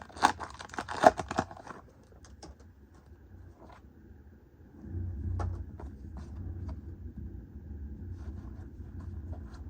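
Foil Pokémon booster pack wrapper crinkling and tearing open in the first couple of seconds, then faint clicks and slides of cards being handled. A low rumble joins about halfway through.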